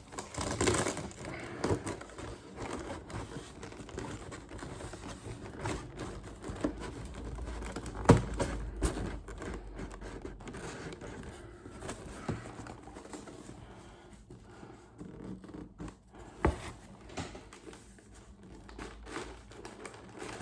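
Packaging being handled: irregular rustling and crinkling with scattered clicks and knocks, the loudest a sharp knock about eight seconds in.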